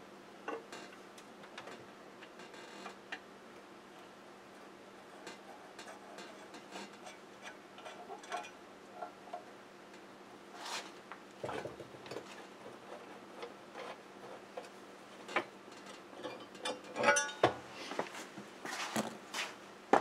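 Scattered light clicks and metal taps from hand-removing the slotted screws and cast-iron wheel cover of a bench grinder, irregular at first and growing busier and louder over the last few seconds.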